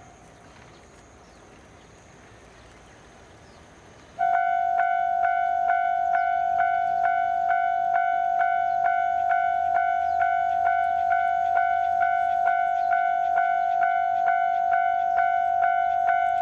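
Railway level-crossing warning bell starts suddenly about four seconds in and rings steadily at about two strikes a second, signalling an approaching train. Before it starts there is only a faint background hiss.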